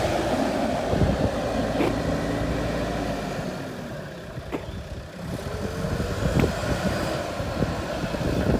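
JCB 3DX backhoe loader's diesel engine running with a steady drone that eases off about halfway, then picks up with a rising whine. A few sharp knocks sound over it.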